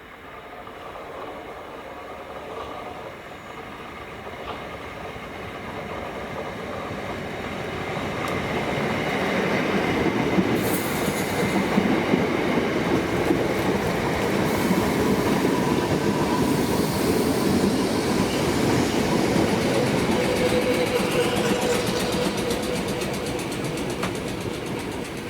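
Southern Class 455 electric multiple unit running in on the rails, with wheel clatter. It grows louder over about ten seconds, stays loud, then eases a little near the end.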